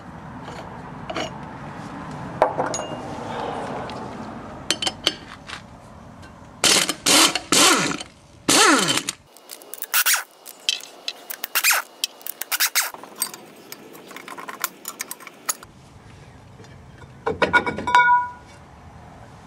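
Impact wrench hammering the rear hub nut loose on an MGB Salisbury axle in two short bursts, the second winding down as it stops. Then metallic clinks and knocks as the socket and nut come off, and near the end a quick run of ringing metal strikes at the brake drum.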